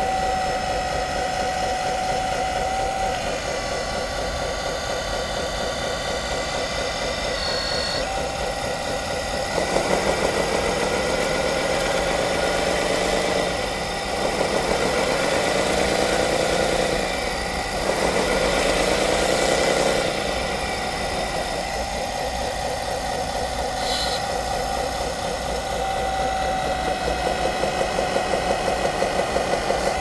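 Sound unit of a 1/14-scale metal hydraulic RC bulldozer playing a simulated diesel engine, idling steadily, then revving up and falling back three times in the middle, a few seconds each time.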